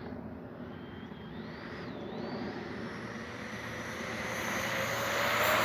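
Electric ducted fan of an E-flite 70 mm F-16 RC jet whining at low power, then spooling up with a rising whine that grows steadily louder over the last couple of seconds, as at the start of a takeoff run.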